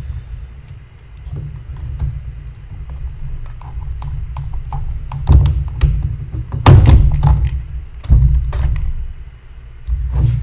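Clicks and knocks of small parts and tools being handled while a carburetor is refitted on a Stihl MS250 chainsaw, with a few sharper knocks past the middle, over a low rumble.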